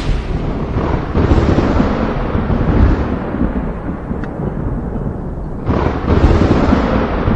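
Thunder: a sharp crack at the start rolls into a long, deep rumble, then a second crack about six seconds in opens another heavy rumble.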